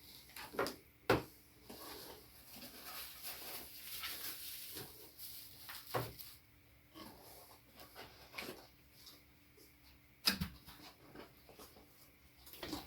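Unboxing handling sounds: packaging and foam rustling, with a few sharp knocks as parts are lifted out and set down.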